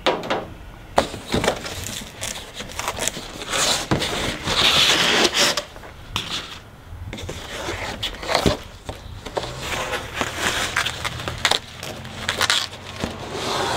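Large cardboard shipping box being opened and handled: cardboard rustling, scraping and crackling, with a few sharp clicks and knocks.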